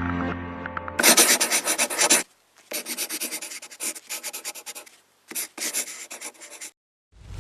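Rapid scratchy rubbing strokes in three runs, stopping and starting, after a held music chord cuts off about a second in. Near the end a whoosh swells into a deep boom.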